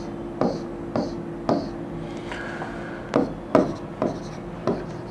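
Pen writing strokes: a string of short taps and scratches as something is written or drawn, with a brief squeak about two and a half seconds in, over a steady low hum.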